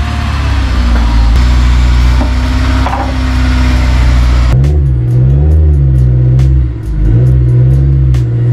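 Honda S2000's inline-four engine running, steady at first. About halfway in the sound changes abruptly and the engine note rises and falls, as with light revving while the car is moved.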